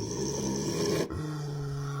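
A dozing man snoring: a rattling snore for about the first second, then a steady low-pitched drone on the next breath.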